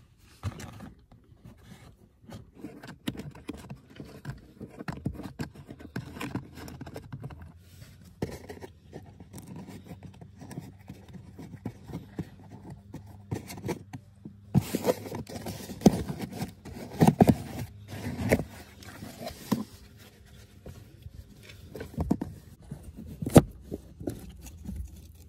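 Hard plastic trim panel under the dashboard being handled and pulled down by hand: plastic scraping and rubbing, broken by many clicks and knocks as its clips let go. The scraping gets busier past the middle, and the sharpest click comes near the end.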